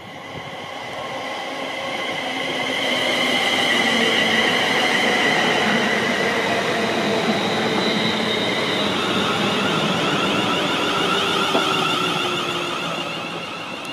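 Siemens Class 350 Desiro electric multiple unit running past close by: wheel-on-rail noise and the whine of its electric traction equipment. The sound builds over the first few seconds as the train approaches, then holds steady as the coaches go by, while the whining tones slide down in pitch in the second half.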